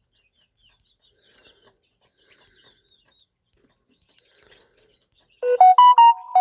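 Smartphone notification chime: a short run of clear electronic tones stepping up and then back down, lasting about a second near the end. Before it there are only a few faint ticks.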